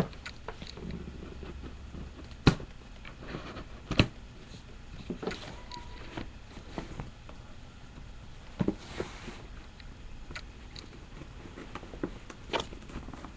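A shipping package being handled and opened by hand: scattered rustling and scraping, with two sharp clicks about two and a half and four seconds in.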